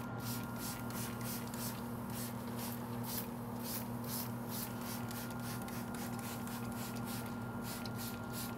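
Hand trigger spray bottle spritzing a pork butt in a pellet smoker: quick hissing squirts, about three a second, over a steady low hum.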